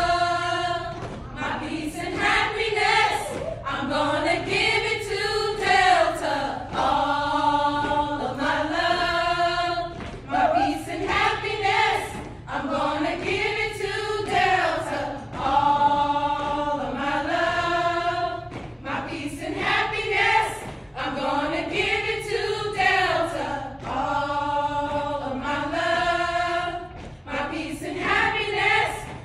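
A group of women singing a chant-like song in unison, unaccompanied, the melody rising and falling in a short phrase repeated about every two seconds.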